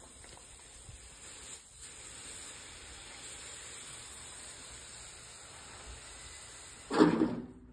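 Hydraulic liftgate hissing steadily as its platform lowers, with one louder clunk near the end.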